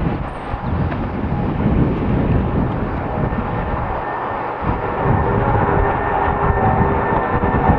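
Airbus A340-600's four Rolls-Royce Trent 500 jet engines running with a steady rushing noise, their fan tones coming in and growing louder over the last few seconds. Gusty low rumble of strong wind on the microphone underneath.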